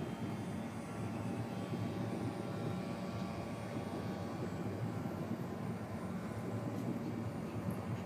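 A motor running steadily, a constant drone made of several low tones over a steady hiss.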